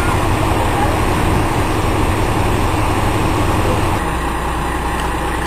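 Heavy vehicle engine idling steadily, its low hum dropping lower about four seconds in.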